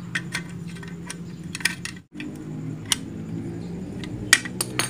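Small metallic clicks and clinks of pliers working a small bolt on the metal contact plate inside an opened sewing machine foot pedal, as the bolt is tightened down, over a steady low hum.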